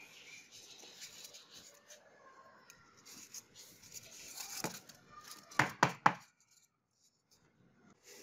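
Hands rubbing and pressing a paper template onto a polystyrene foam block: foam and paper scraping and rustling, building past the middle, then three sharp clicks in quick succession.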